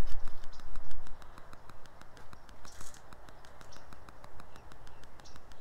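A knife and metal tongs cutting and handling a smoked rack of St. Louis-cut pork ribs on a wooden cutting board: scraping and small clicks, with a loud low rumble in the first second.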